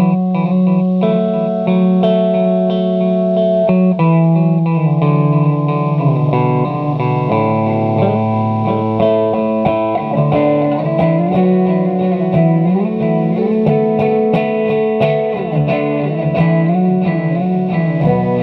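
Electric guitar played through a Guyatone MD3 digital delay pedal: sustained notes and chords with their echoes layering over one another, the pitches shifting every second or so.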